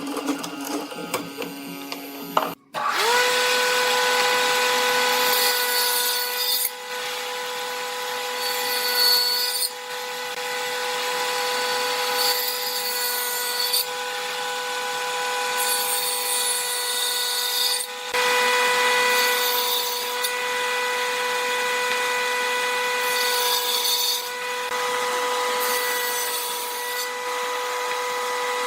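Electric power tool spinning up to speed about three seconds in and running at a steady high whine. Repeated passes of the tool working wood add a rasping hiss in stretches of a few seconds each.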